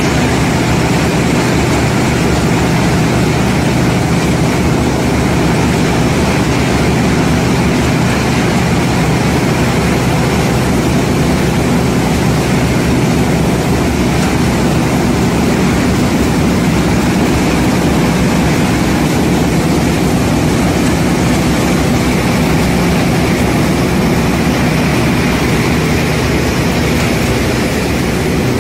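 Corn cob meal processing machinery running: a steady, loud mechanical drone with a constant low hum.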